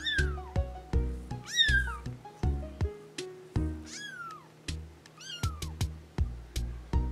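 Kittens mewing: four high mews, each falling in pitch, over background music with low notes and clicks.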